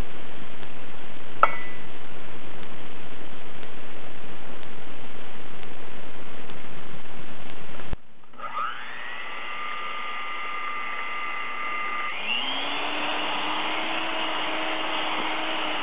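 A steady hiss for about eight seconds, then an electric hand mixer starts beating egg whites and sugar for Swiss meringue in a stainless steel bowl. Its motor whine rises and levels off, then climbs again to a higher speed about four seconds later.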